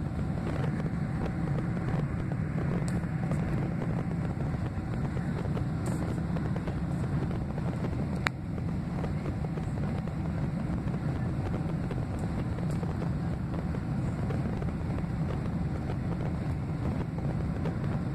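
Steady engine and airflow noise inside the cabin of a Boeing 767-300ER climbing after takeoff, from its two General Electric CF6-80C2B6 turbofans, heaviest in a deep low rumble. A single sharp click about eight seconds in.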